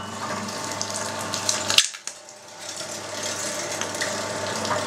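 Electric meat grinder running with a steady motor hum while its auger forces partly frozen fatty pork through a 6 mm plate, with irregular crackles from the meat. The hum drops out briefly about two seconds in, then comes back.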